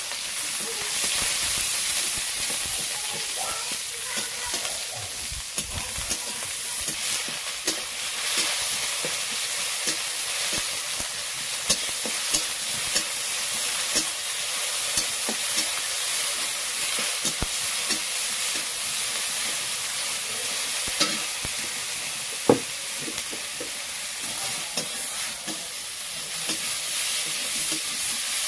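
Small fish, then chopped tomatoes, sizzling in hot oil in a metal kadai, with a metal spatula scraping and clicking against the pan as it is stirred. One sharper knock of the spatula on the pan comes about three-quarters of the way through.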